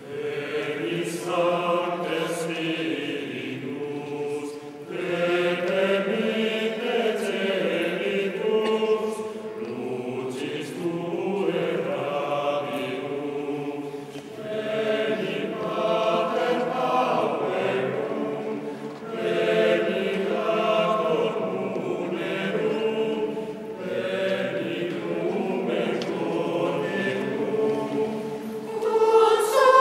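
Mixed choir of women and men singing, coming in together right at the start with sustained chords, in phrases of several seconds separated by short pauses.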